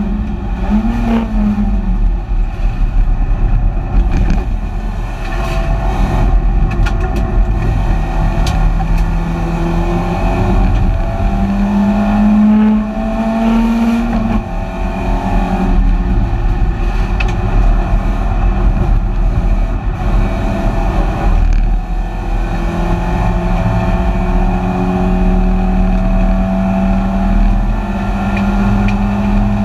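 Onboard sound of a BMW 318ti Compact race car's four-cylinder engine at racing speed, heard inside the stripped cabin. The engine is held at high revs along stretches and twice falls away and picks back up, over steady road and wind noise.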